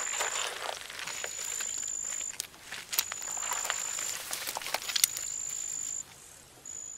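An insect calling: a high, steady buzz lasting about a second, repeated roughly every two seconds, over a rustling hiss with scattered light clicks.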